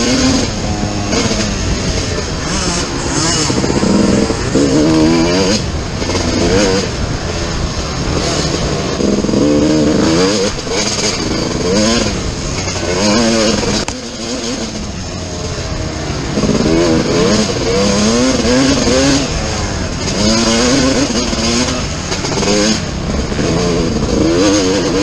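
Dirt bike engine heard from on board, revving up and dropping back over and over as the rider opens and closes the throttle through the gears. It eases off for a couple of seconds about halfway, then climbs again.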